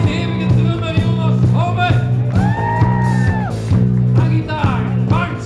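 Live rock band playing: electric guitars, bass guitar and drums over a steady beat, with sung vocals.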